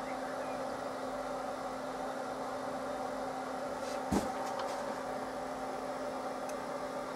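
Steady workshop machinery hum with a fixed low tone. About four seconds in comes one sharp metallic click and a few lighter ticks, as the dial test indicator is set against the cylinder block.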